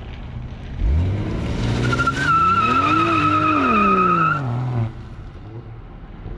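2020 Toyota Supra's turbocharged inline-six revving hard as the tyres spin in a burnout attempt, with a steady high tyre squeal from about two seconds in. The engine note climbs, then falls, and the loud run cuts off sharply near five seconds as the car lifts off and drives away.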